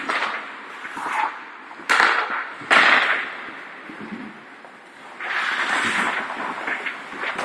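Ice hockey sticks and puck cracking sharply, twice in quick succession about two seconds in, echoing around the indoor rink, with skates scraping over the ice.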